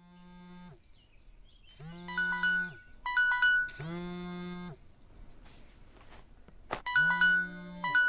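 Mobile phone ringtone: a short melody of clear, chime-like notes that plays, pauses and repeats.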